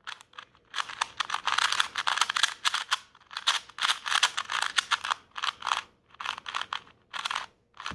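A brand-new KungFu 2x2 speed cube being turned fast: its plastic pieces clicking and rattling in quick bursts of turns, with short pauses between them.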